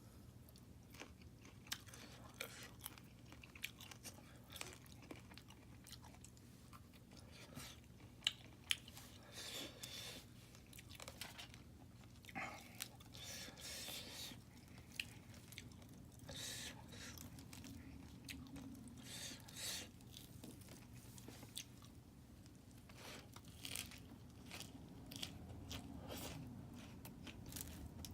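A person biting and chewing crunchy food close to the microphone: irregular sharp crunches, with longer crackly stretches of chewing between them.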